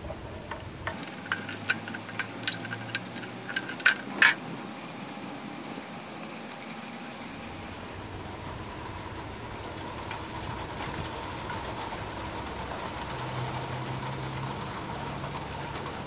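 About ten sharp plastic clicks and snaps over the first four seconds, the loudest two around four seconds in, as a gold-pinned plastic connector is pried off a circuit board. A steady background hum follows.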